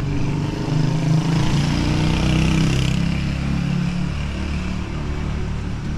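A motor vehicle passing close by on a city street, its engine and tyre noise swelling about a second in and easing off after about three seconds.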